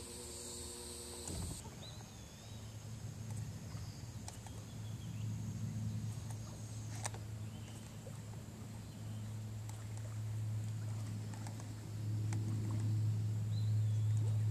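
A steady low hum that grows louder toward the end, with a few faint bird chirps over it.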